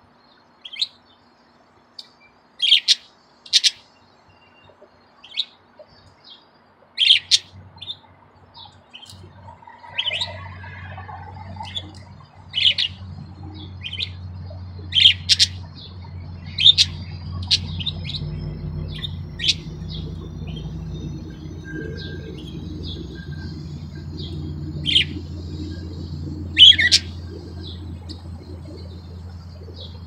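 Pet budgerigars chirping: short, sharp, high chirps, singly and in quick pairs, on and off. A steady low hum comes in about ten seconds in and runs under them.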